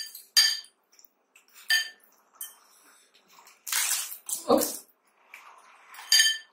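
Dishes clinking: a glass bowl and steel plates knocked as golgappas are dipped in the spicy pani, about five short ringing clinks. About four seconds in, a loud rush of breath ending in a short grunt from an eater feeling the chilli.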